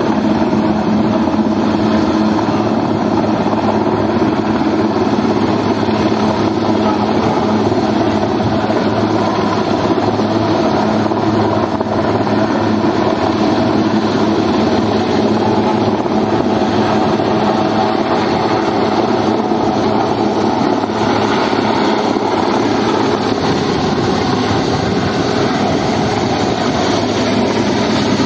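Westland Sea King helicopter hovering, its rotor and turbine engines making a steady, loud drone with no break or change.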